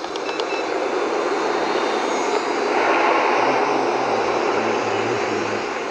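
Electric motor and propeller of a small RC trainer airplane, a WLToys Cessna 182, running with a steady rushing buzz that swells about three seconds in.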